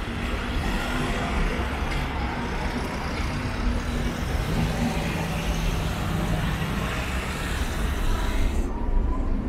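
City road traffic: cars and buses running and passing through an intersection, with a low engine hum. Near the end it cuts to the duller, muffled running sound inside a tram.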